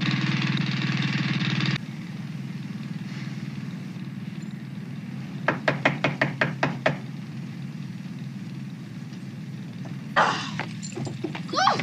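Steady engine hum, like a running generator, loud for the first two seconds and then quieter after a sudden drop. About halfway through, a quick run of about eight sharp knocks, and near the end a short scrape and a squeak.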